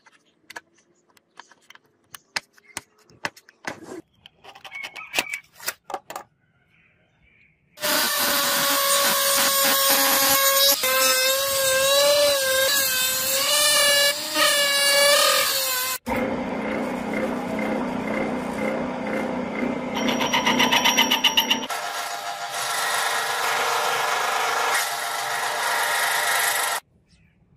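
Light scattered clicks and taps of tools being handled. About eight seconds in, a rotary tool with a cut-off disc whines loudly as it cuts, its pitch wavering up and down under load. From about halfway, a metal lathe runs steadily as it turns a brass disc, then stops shortly before the end.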